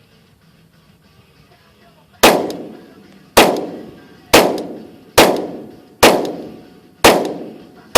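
Glock 23L pistol in .40 S&W firing a steady string of shots, about one a second, beginning about two seconds in. Each report is sharp and dies away in a short echoing tail.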